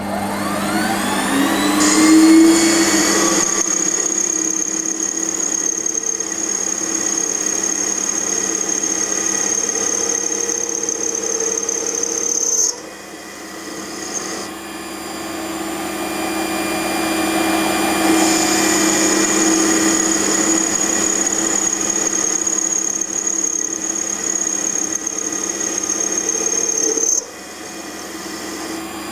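Small benchtop metal lathe starting up, its motor whine rising over the first few seconds, then running steadily with a high whine as the tool turns down the spinning metal shaft. The sound drops abruptly about halfway through and again near the end, then builds back up.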